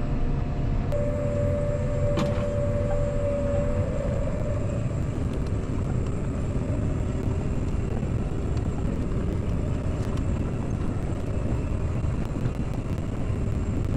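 Farm tractor engine running steadily, a low rumble with a whine that holds for a few seconds about a second in and then fades.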